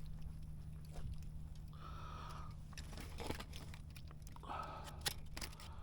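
Fishing reel being worked to bring in a hooked fish: scattered clicks and two short whirring spells, over a steady low hum.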